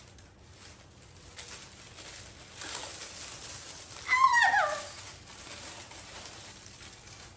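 Tissue paper rustling and crinkling as it is pulled back inside a shoebox. About four seconds in there is a brief, high-pitched falling vocal sound.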